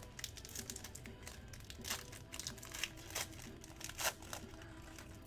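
A trading-card pack's foil wrapper is torn open and crinkled by hand: a run of crackling rustles, sharpest about two and four seconds in.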